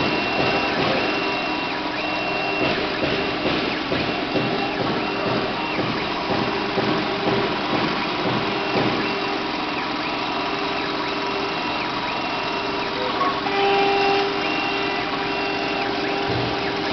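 Small CNC router engraving a copper-clad circuit board: the spindle runs steadily while the stepper motors sound in short whining tones that switch on and off and change pitch as the axes move in stop-and-go strokes.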